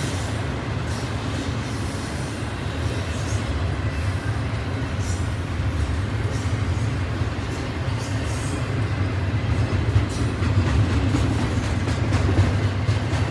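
Double-stack intermodal container train's well cars rolling past: a steady low rumble of steel wheels on the rails, with faint clicks here and there.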